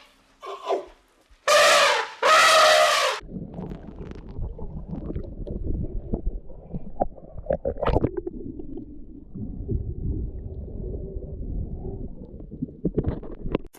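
An animal's sounds: three short, loud pitched calls, then a long low, noisy rumble with scattered clicks.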